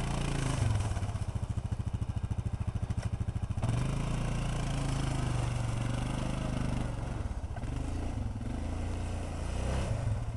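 ATV engine working as the quad climbs over snow and dirt mounds. The throttle opens briefly about half a second in, surges louder near four seconds in, and eases off toward the end.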